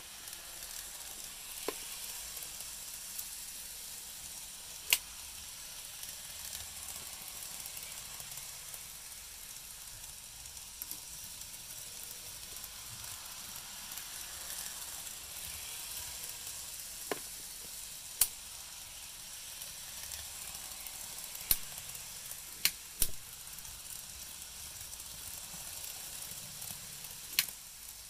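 N-scale model trains running on sectional track: a steady whirring hiss of motors and wheels, broken by several sharp clicks at irregular intervals.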